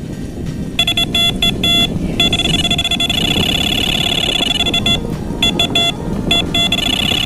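Electronic carp bite alarm sounding: a few short beeps, then an unbroken run of tone for about three seconds, then more quick bursts of beeps. A run like this signals a fish taking line on a rod.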